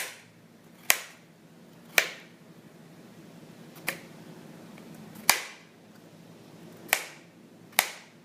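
A knife chopping potatoes on a cutting board: about seven separate sharp knocks, roughly a second apart and unevenly spaced.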